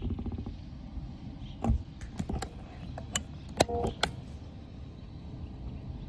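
Wind buffeting the microphone as a low steady rumble, with a handful of sharp clicks and taps in the middle, the loudest about three and a half seconds in.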